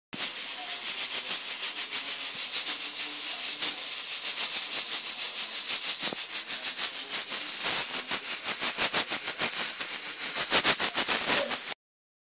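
Aluminium stovetop pressure cooker at full pressure: steam hisses loudly out of the weighted valve, which rattles rapidly and unevenly as it lifts and drops. The sound stops abruptly near the end.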